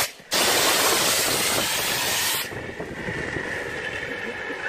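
Fire extinguisher discharging in a loud, continuous hiss. It starts after a brief gap at the very beginning, then turns duller and quieter about halfway through.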